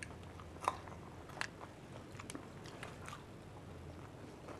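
Fuchka (pani puri) stuffed with green chilies being bitten and chewed, a few short crunches about a second apart.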